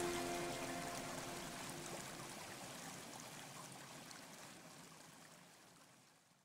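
The last held notes of the background music die away within the first second or so, leaving a soft patter of water drops that fades out steadily and cuts to silence at the very end.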